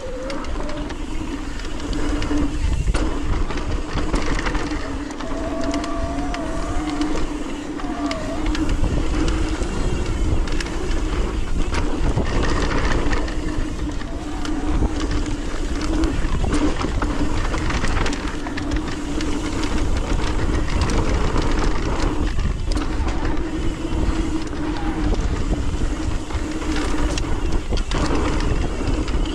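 Mountain bike descending a loose dirt trail at speed: wind rushing over the microphone and tyres rolling on dirt, under a steady buzzing tone.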